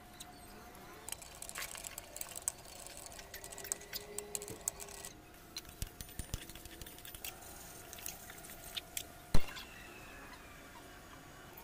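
Scattered light clicks and taps of steel utensils being handled, with one much louder sharp knock about nine seconds in.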